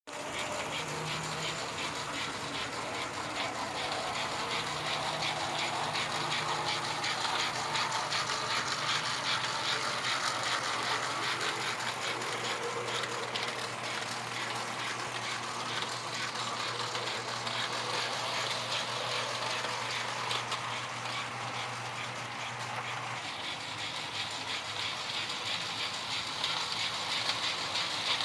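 S-scale model steam locomotive, an American Flyer Hudson rebuilt as a Mikado, running on track: its motor and gears whir with a rapid, continuous clicking. A low steady hum under it stops about 23 seconds in.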